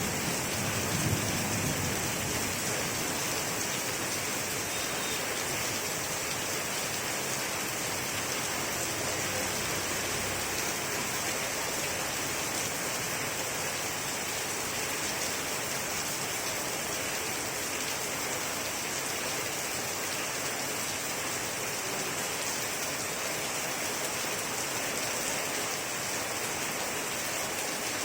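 Steady white-noise sleep sound: an even, unbroken hiss like heavy rain, spread across low to high pitches.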